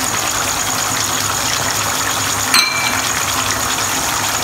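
Beef and tomato curry sizzling steadily in a frying pan, with a single brief clink about two and a half seconds in.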